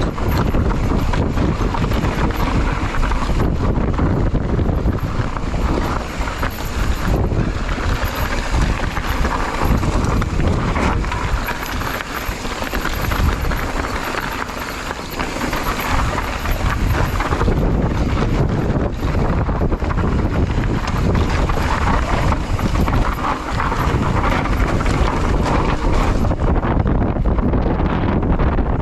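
Wind buffeting the microphone during a bicycle ride over a rough trail, with frequent knocks and rattles from the bike running over the ground.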